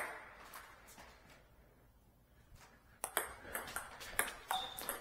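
A table tennis ball clicking off bats and the table. One sharp hit comes at the start; after a quiet spell, a quick run of clicks begins about three seconds in, about three a second, with a brief squeak near the end.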